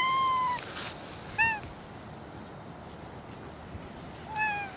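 Cat meowing three times, each meow rising and falling in pitch: a longer meow at the start, a short one about a second and a half in, and another near the end.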